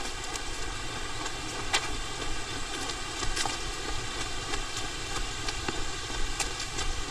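Steady low rumble and hiss, with irregular sharp clicks, on the microphone of a GoPro Hero 11 action camera.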